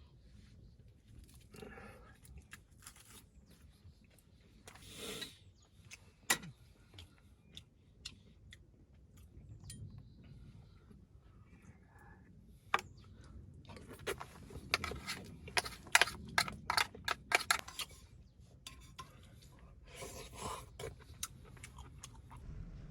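Scattered clicks and clinks of camp cookware and utensils being handled, with a quick run of sharp clicks and knocks about two-thirds of the way through.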